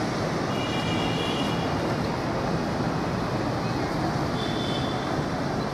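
Steady outdoor background noise of distant road traffic, with faint high tones about half a second in and again near the end.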